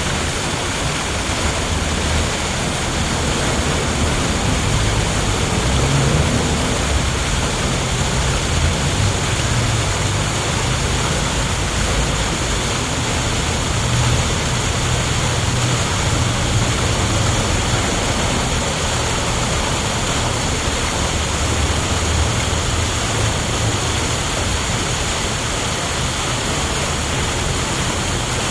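A steady rushing noise with an uneven low rumble underneath, unchanging throughout.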